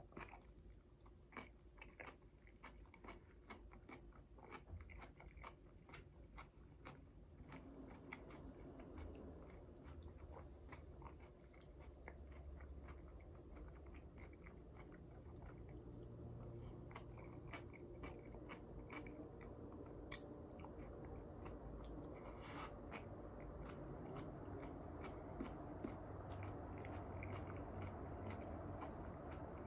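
Close-up chewing of soft cooked molokheiya leaves and okra, with many small, wet mouth clicks. A steady background noise grows louder over the second half.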